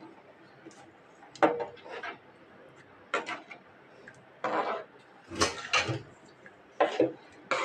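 A spoon knocking and scraping against a cooking pan in a string of short clatters, as the masala gravy is stirred.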